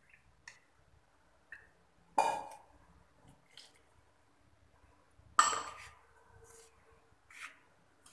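Kitchenware clinking and clanking: faint clicks, then two sharp clatters of steel vessels and bowls about two and five seconds in, as milk is poured from a steel pot into a bowl and into the mixing bowl. Near the end comes a wire whisk knocking against a steel mixing bowl.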